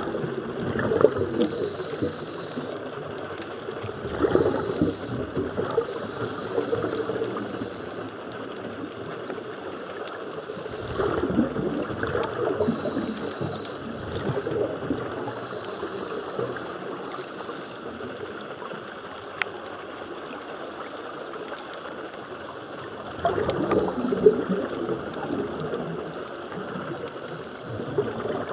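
Scuba regulator breathing recorded underwater: bursts of exhaled bubbles every several seconds, with a thin hiss of inhaled air between some of them.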